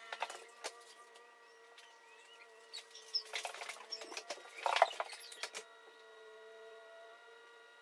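Soft crackling and clicking from a Chinese mantis chewing through a wolf spider's body, loudest in a cluster of crunches about three to five and a half seconds in, over a faint steady hum.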